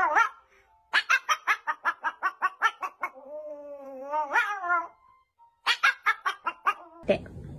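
Small white dog howling and yipping in a sing-song way: a fast run of short high yips, about six a second, then a long wavering howl that rises at its end, then another quick run of yips.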